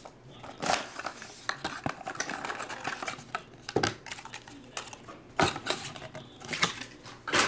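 Cardboard trading-card box being handled and opened: the inner box slid out of its sleeve and its flaps pulled open, making scattered light clicks, taps and scrapes, with a few sharper knocks through the middle and near the end.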